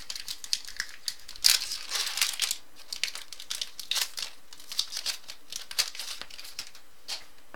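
A trading card pack wrapper crinkling and tearing as it is opened, with cards being handled in short scattered ticks. The crinkling is loudest about a second and a half in.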